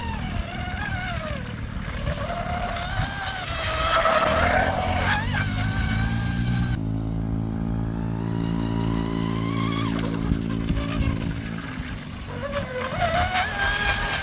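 The brushless electric motor of a high-speed RC tunnel hull boat whines as it is driven across the water, its pitch rising and falling with the throttle. From about seven seconds in it settles into a steadier, lower drone.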